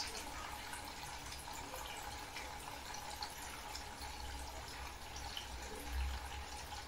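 Quiet, steady rush of mains water flowing through the opened valve into the water filter housings as they fill and the pipes pressurize.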